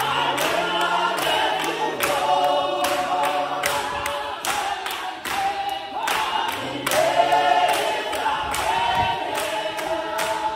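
Congregation singing together in a church service, many voices with no instrument plain to hear, over a steady beat of sharp strokes about twice a second, likely hand claps.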